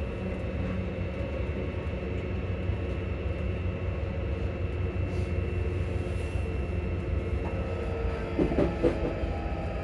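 Interior running noise of a ScotRail Class 334 electric multiple unit: a steady low rumble with a steady whine from the traction equipment over it. A brief louder sound comes about eight and a half seconds in.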